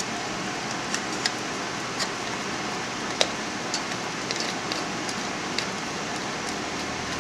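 Small plastic clicks and taps as a hand handles the plastic paint cup of a gravity-feed spray gun, over a steady fan-like hiss.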